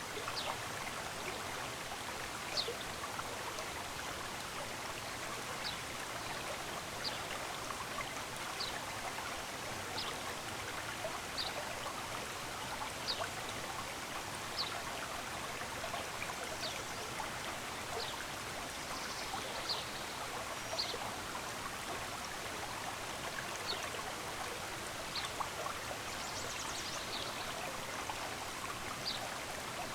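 Steady rush of running stream water, with a bird repeating short, high, downward-slurred chirps about every one to two seconds.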